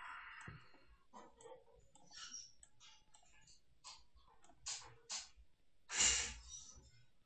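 A person's soft breathing close to the microphone, with a louder exhale about six seconds in, and a few short mouse clicks.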